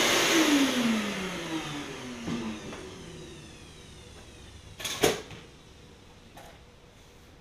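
A vacuum cleaner is switched off and its motor winds down, the whine falling steadily in pitch over a couple of seconds. About five seconds in there is a single sharp clack.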